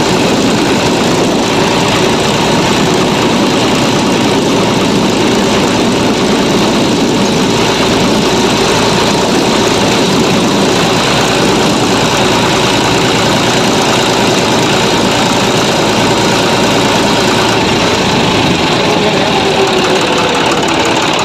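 John Deere 5405 tractor's diesel engine running steadily as the tractor drives along at road speed.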